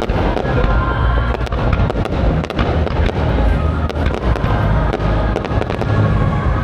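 Fireworks display going off without pause: a dense, continuous low rumble of bursts overlaid with many sharp crackles.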